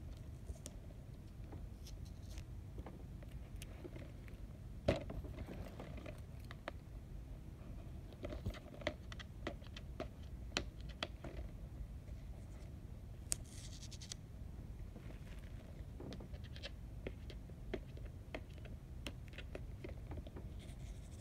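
A key scraping and picking at the plastic wrap and security sticker on a plastic DVD case, with scattered small clicks and scratches and one sharper knock about five seconds in.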